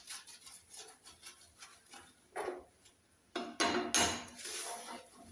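A sponge scrubbing cleaning paste over a gas stove top, with a short loud clatter of metal knocks about three and a half seconds in as it works around a burner and its pan support.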